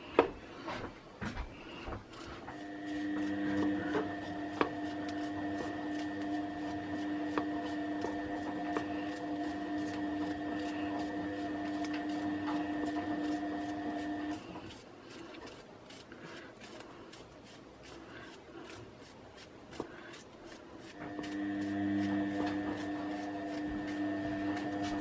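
A steady machine hum from a kitchen appliance starts about two seconds in, stops about halfway through and comes back near the end. Underneath it are short, repeated scrapes of a hand peeler stripping the skin off a vegetable.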